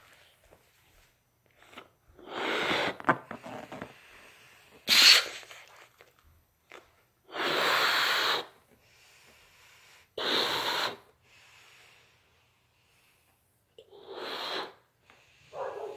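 A person blowing up a latex balloon: about five hard, noisy breaths, each about a second long, with short pauses between them. The sharpest and loudest comes about five seconds in.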